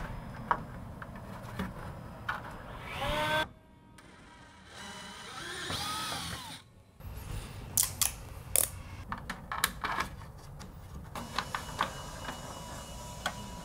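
Cordless drill driving screws into the licence plate mounting, running in a few short bursts with a whine that rises as it spins up. Sharp clicks and knocks of parts being handled follow.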